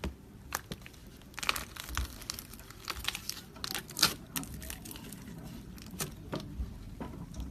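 Slime being squished and pulled, with sticky crackling and a string of sharp little pops and clicks as air pockets burst. They come thickest in the first half, with the loudest pop about four seconds in.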